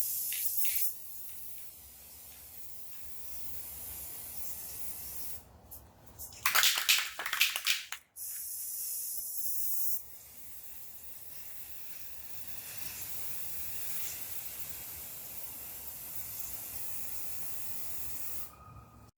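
Aerosol spray paint can hissing in a series of sprays, some strong and some softer, with a louder, fuller burst about six and a half seconds in.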